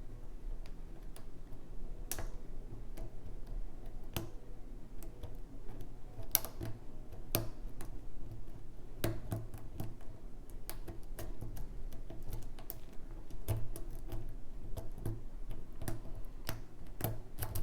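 Lock picking: small, irregular metallic clicks and ticks as a pick works the pin stacks of a pin-tumbler challenge lock held under tension, with a steady low hum underneath.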